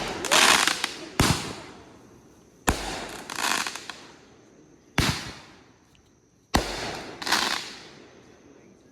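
Fireworks going off: about seven sharp bangs a second or two apart, several followed closely by a second, longer burst, each one dying away in an echo.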